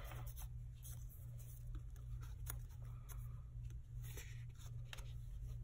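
Faint paper rustles and light taps of a hand pressing a sticky note onto a planner page, over a steady low hum.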